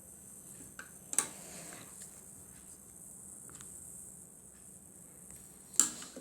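A steady high-pitched hiss or drone, with a sharp tap or click about a second in and two more near the end.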